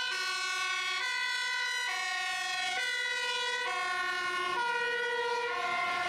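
Dutch fire engine's two-tone siren sounding on the move, alternating between a high and a low note about once a second.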